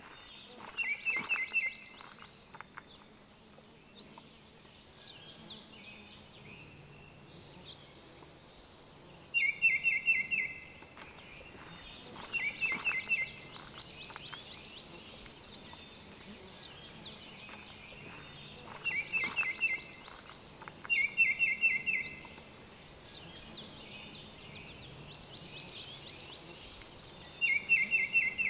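Baltimore oriole calling: six short, rapid strings of notes spaced several seconds apart, with fainter, higher notes between them.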